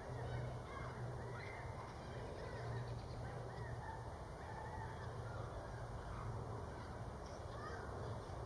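Background birds calling in short, repeated chirps and honks, over a steady low hum.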